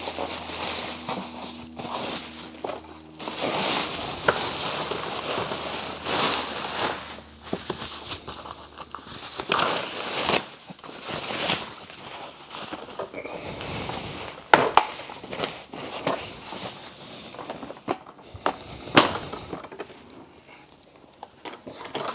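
Plastic packaging bag crinkling and rustling as a machine is pulled out of it and unwrapped, with scattered sharp knocks, the loudest about two-thirds of the way through and again near the end.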